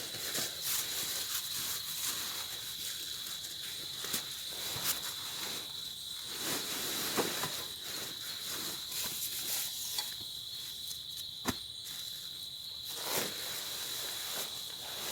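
Insects trilling steadily at one high pitch, with scattered light taps and knocks.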